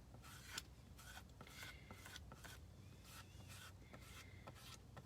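Faint scraping and rubbing strokes of a squeegee working chalk paste over a silkscreen stencil, with one slightly louder scrape about half a second in.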